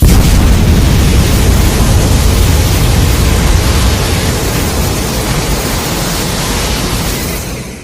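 Made-up ray-gun beam sound effect firing: a loud rush of noise that starts abruptly, holds fairly steady while easing a little, and cuts off near the end.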